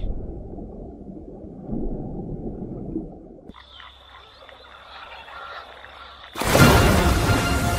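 Low, muffled waterside ambience, then a quieter spell with a steady high whine. About six and a half seconds in comes a sudden loud splashing crash: the Nile crocodile lunging out of the water at a drinking impala.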